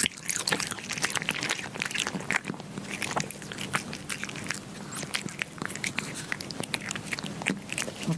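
Kittens chewing and biting meat, with many quick, irregular clicks.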